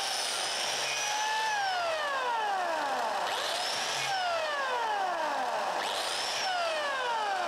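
DeWalt DW682K 600 W biscuit jointer cutting slots in board. Its motor whines at speed and winds down with a falling pitch about a second in. It is then started twice more, each time revving up quickly, running for about a second and winding down again.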